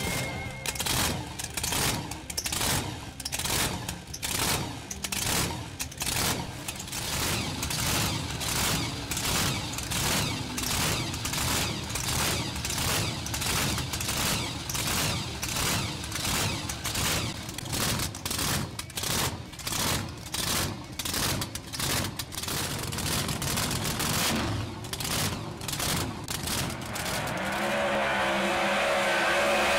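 Supercharged drag-racing engine of a 1948 Anglia gasser running with a heavy, even lope of about two loud pops a second. Near the end it changes to a steady, higher rev.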